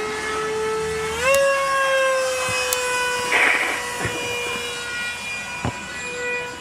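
Electric RC model plane in flight, its motor giving a steady whine that jumps up in pitch a little over a second in and then slowly falls away. A short hiss comes about halfway through.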